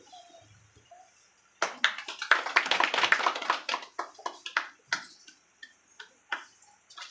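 Hand clapping that breaks out about a second and a half in, holds for a couple of seconds, then thins to a few scattered claps.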